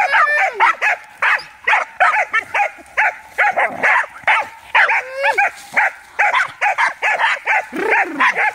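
American foxhound hunting dogs barking excitedly in rapid, high barks, about three a second, with a few drawn-out yelps among them. They are worked up by a caught armadillo held up to excite them.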